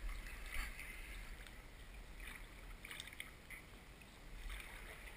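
Muffled water sounds picked up by an underwater GoPro: a steady low rumble with several short hissy bursts of water movement and bubbling.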